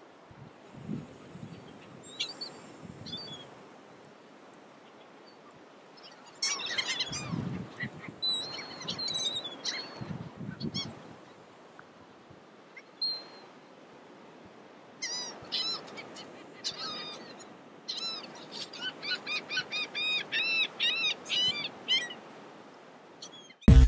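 Birds calling in groups of short, arched calls, ending in a fast run of about four calls a second, with low rumbling in between.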